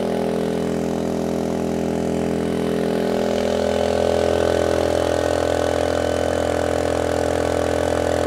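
Ryobi RYI2322E inverter generator's engine running steadily under its full rated load of 1,800 running watts.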